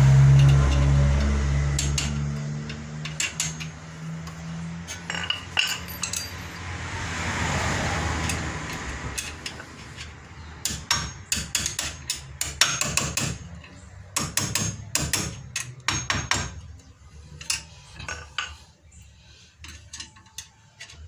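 A vehicle engine running and fading away over the first few seconds, then a series of sharp metallic taps and knocks as steel brake caliper parts are worked and knocked into place on a car's front brake.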